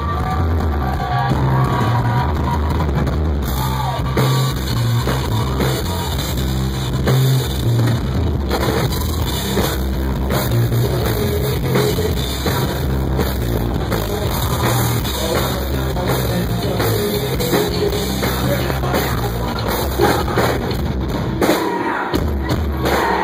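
Live rock band playing loudly through a PA: drum kit, electric guitar and bass guitar.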